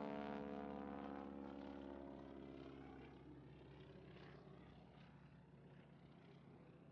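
1940 Boeing-Stearman Model 75 biplane's radial engine droning in flight, fading away over the first three seconds as the plane moves off, leaving only a faint hum.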